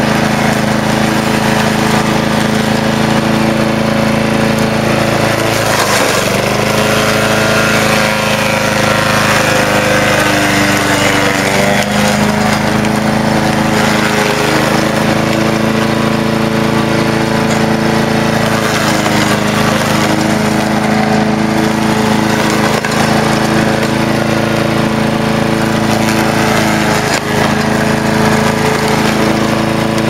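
Walk-behind rotary lawn mower's small petrol engine running steadily while it cuts young nettles and grass, its pitch dipping briefly about four times as it takes the load of the cut.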